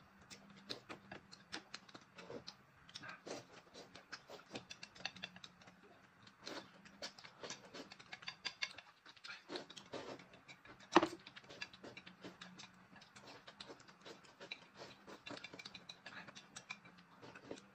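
Quiet eating sounds: noodles slurped and chopsticks clicking against a ceramic plate, a scatter of small irregular clicks and ticks with one sharper clack about eleven seconds in.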